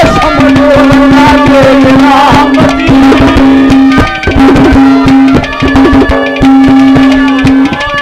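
Live Haryanvi ragni folk music with no singing: a fast hand-drum rhythm under a long held steady note that breaks off briefly twice, with a wavering melody line over the first couple of seconds.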